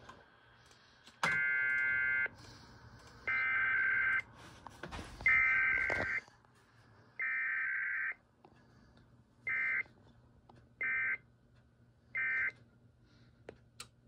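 EAS SAME digital data bursts relaying a test alert: four raspy, buzzy bursts of about a second each, spaced about a second apart, then three short bursts, the end-of-message code. They come from a Sage EAS ENDEC.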